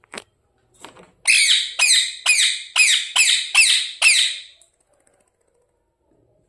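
Pet parrot squawking: a run of about eight harsh, high calls in quick succession, about two a second, each falling in pitch, starting a little over a second in and stopping after about four and a half seconds.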